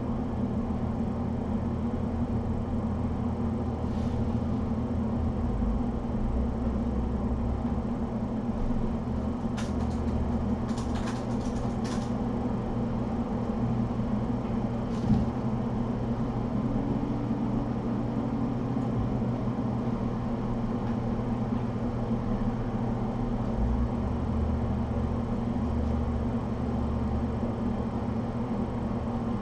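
Steady low hum of a portable air conditioner running. A few faint clicks come in the first half, and a soft thump about halfway through.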